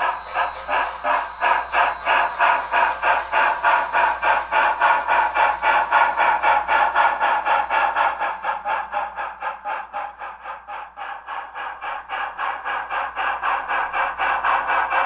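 Steam exhaust chuffing of a 2-8-8-4 EM-1 articulated steam locomotive, a steady rhythm of about four chuffs a second. It grows quieter around the middle and then comes back up.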